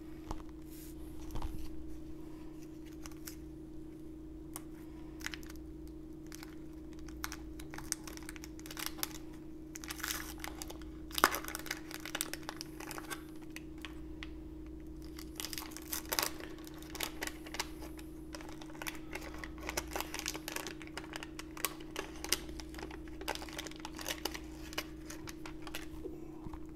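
Waxed paper wrapper of a 1990 Donruss baseball card wax pack being torn open and crinkled by hand. Irregular crackles and small rips, with one sharper snap about eleven seconds in.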